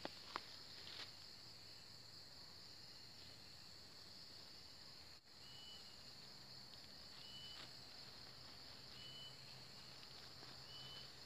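Faint outdoor ambience dominated by a steady high insect drone, with a short high chirp repeating about every two seconds in the second half. A few faint taps or rustles in the first second.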